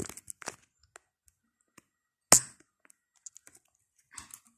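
Scattered light clicks and taps, with one much louder sharp knock a little over two seconds in.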